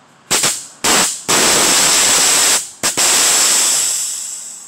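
Nitrous oxide purge valve blowing off in sharp hissing bursts: two short blasts, a long spray, a brief blip, then a second long spray that fades away. The system is being purged to clear the feed line.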